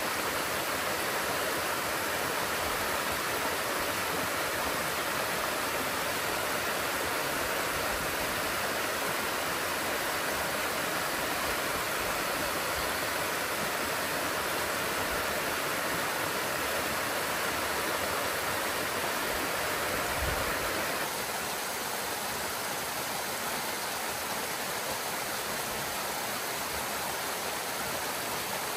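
Steady rush of water from a small stream cascading over rocks, a continuous even noise that drops slightly about two-thirds of the way through.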